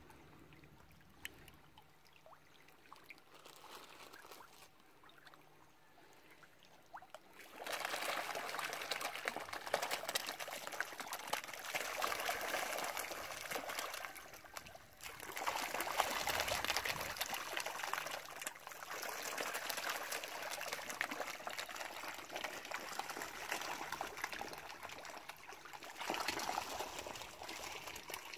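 A mass of fish splashing and thrashing at the water's surface as they feed, a dense crackling splash that starts about seven seconds in and keeps going, with brief lulls.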